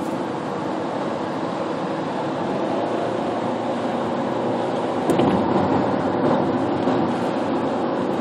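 Steady road and tyre noise heard from inside a car's cabin at freeway speed, with a brief louder bump about five seconds in.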